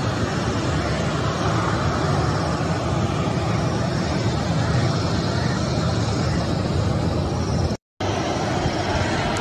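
Jet airliner engines running at low power as the plane taxis, a steady rumble mixed with outdoor noise. The sound drops out for a moment about eight seconds in.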